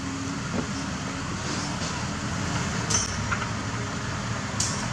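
Kobelco crawler crane's diesel engine running steadily, with two short sharp clicks, one about three seconds in and one near the end.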